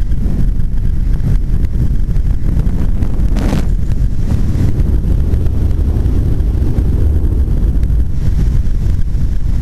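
Loud wind buffeting the camera's microphone during a tandem parachute descent: a steady low rumble with a short flare of hiss about three and a half seconds in.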